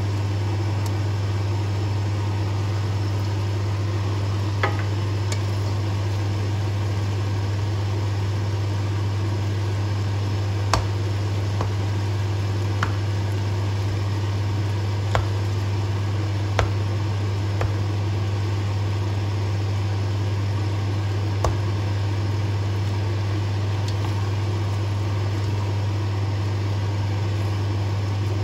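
Steady low hum of a running kitchen appliance with a faint hiss, broken by about seven sharp clicks of a wooden spatula against the pan as pineapple is stirred into the simmering stew.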